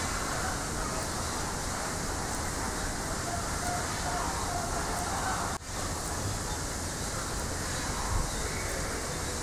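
Steady background noise with faint, indistinct voices of people, cut by a brief dropout a little past halfway. A short low thump comes near the end.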